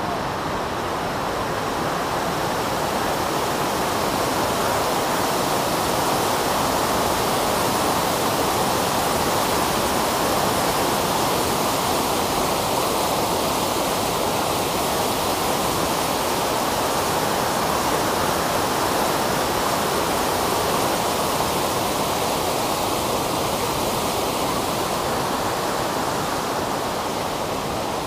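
Gullfoss, a large waterfall on Iceland's Hvítá river, making a steady, even rush of falling water.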